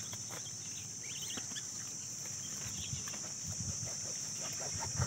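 Steady high-pitched drone of insects, with a few faint chirps and small clicks.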